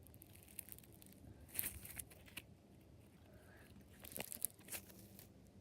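Floam slime worked by hand, its foam beads crunching and crackling faintly in two short bursts, about a second and a half in and again about four seconds in.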